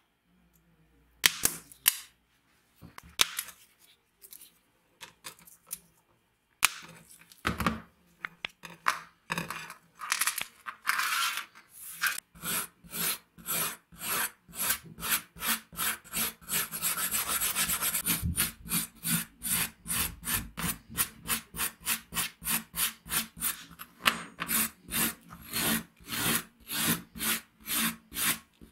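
Steel side cutters biting rivet heads off a rusty sword tang: a few sharp, separate clicks. Then a hand brush scrubbing rust off the steel blade and tang in quick back-and-forth strokes, about two or three a second.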